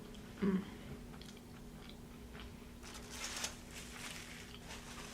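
Close-miked chewing of crispy vegetable samosa: small wet mouth clicks, with a run of louder crunchy bites about three seconds in. A brief low hum about half a second in.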